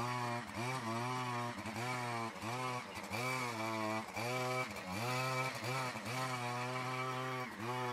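Two-stroke brush cutter engine running at high speed while its head churns through a pile of dry material. Its pitch sags and recovers about twice a second as the load comes and goes.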